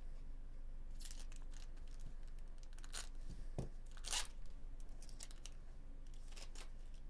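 A trading-card pack wrapper being opened and handled: a series of short tearing and crinkling rustles, loudest about four seconds in, as the Bowman Chrome cards are pulled out.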